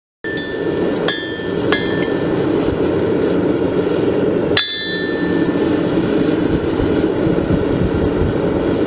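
Hand hammer striking a hot 5160 steel bar on an anvil: four ringing blows in the first five seconds, then none. A steady gas-forge roar runs under them throughout.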